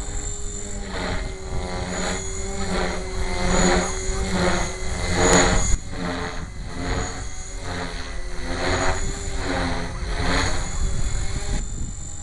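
Electric 450-size RC helicopter (HK450GT) flying aerobatics overhead: its rotor noise swells and fades in quick pulses, about one to two a second, as the collective pitch is worked back and forth. A steady high whine from the brushless motor runs beneath. The loudest swell comes about five seconds in.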